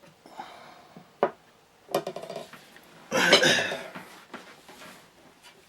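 Metal clinks and rattles from gear being handled: a few light clicks, then a louder clatter about three seconds in.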